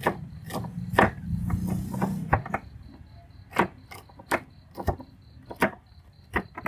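Cleaver chopping green onions on a wooden chopping board: single sharp knocks of the blade against the wood at an uneven pace, about one or two a second.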